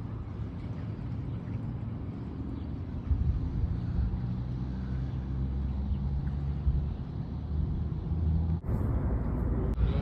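Low, steady rumble of motor vehicle traffic, getting louder about three seconds in.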